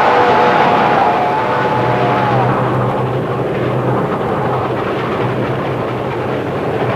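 Train running with a steady rushing rumble. A whistle chord of several tones sounds at the start and trails off, dipping slightly, about two and a half seconds in, leaving a steady low hum under the running noise.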